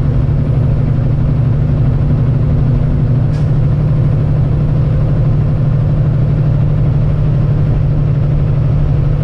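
Kenworth semi truck's diesel engine droning steadily in the cab while pulling a heavy lowboy load down the highway, with road noise. There is a faint click about three and a half seconds in.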